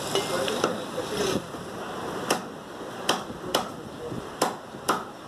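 Meat cleaver chopping mutton on a wooden chopping block: sharp strikes at an uneven pace, coming quicker in the second half.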